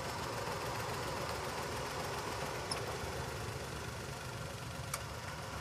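Maruti Suzuki Wagon R petrol engine idling with a misfire: one cylinder is dead from a failed ignition coil. A single sharp click comes about five seconds in.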